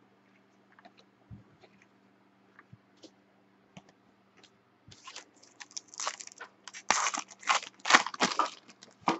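A foil trading-card pack wrapper being torn open and crinkled in the hands: a dense run of crackly tearing and crinkling from about five seconds in, stopping just before the end. Before it there are only a few faint clicks of cards being handled.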